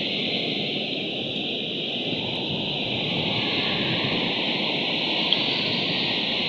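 Steady rushing noise, even throughout, with one brief faint tick about five seconds in.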